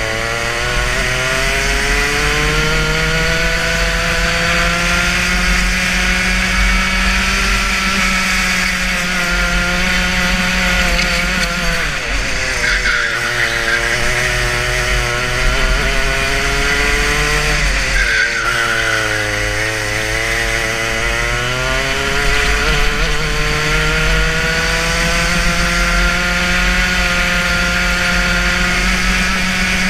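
Racing kart engine heard from an onboard camera, revving high, with its pitch dropping twice as the kart slows for corners, about 12 and 18 seconds in, then climbing again as it accelerates away.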